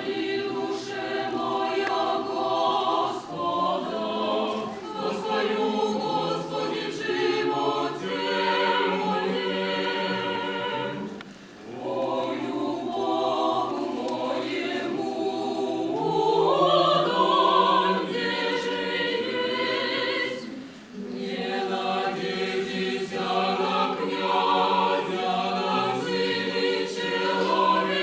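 Choir singing a sustained, multi-voice piece with a steady low note beneath it, pausing briefly between phrases twice.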